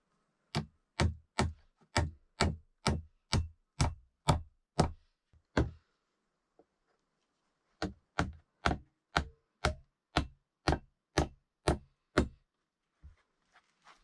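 Hammer blows on a wooden plank, driving nails into the board: two runs of about a dozen sharp, even strikes, two or three a second, with a pause of about two seconds between them.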